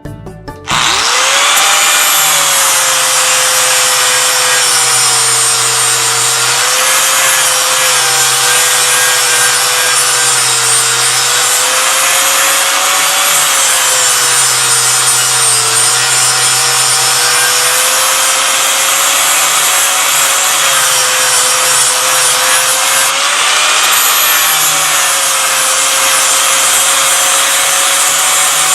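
Electric grinder running steadily under load, grinding a steel blank to profile; its motor tone wavers slightly as the work is pressed against it. It starts about a second in.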